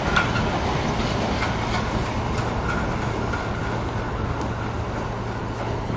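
Tail of a steel freight train passing on the rails: the last wagons' wheels clank over rail joints a few times in the first two seconds, then the rumble trails off slightly as the train moves away.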